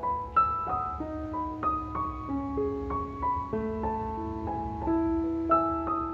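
Background piano music: a gentle melody of single notes, each struck and left to ring, over longer low notes.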